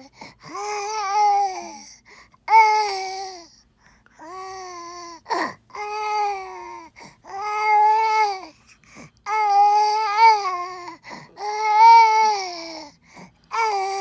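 Young infant babbling in a run of about eight long, drawn-out, wail-like vocal sounds with short breaths between, as if talking back.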